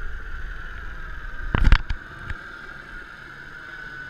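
Noise aboard a fishing boat on the water: a steady high whine over a low rumble, broken about one and a half seconds in by a quick cluster of loud, sharp knocks and one more a little later.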